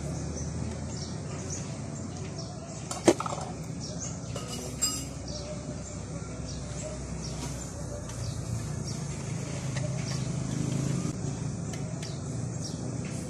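Laundry being handled at a twin-tub washing machine over a steady low hum, with a sharp click about three seconds in and a smaller one near five seconds. Birds chirp faintly in the background.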